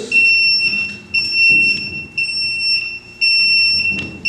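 Industrial Scientific T40 Rattler H2S gas detector sounding its alarm, a high-pitched beep repeating about twice a second, set off by the hydrogen sulfide calibration gas it has been reading. A light knock comes near the end.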